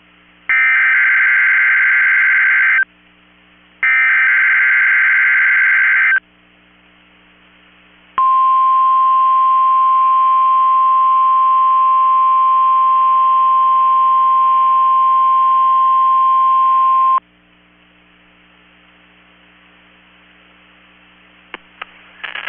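NOAA Weather Radio Emergency Alert System test: two bursts of shrill digital SAME header data, each about two seconds long. After a pause comes the weather radio warning alarm, a steady single 1050 Hz tone held for about nine seconds that cuts off abruptly.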